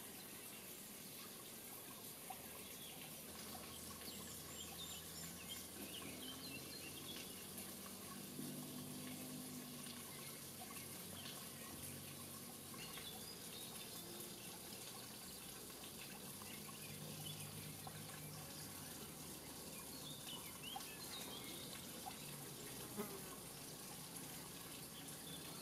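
Faint outdoor ambience: a steady hiss with scattered faint bird chirps.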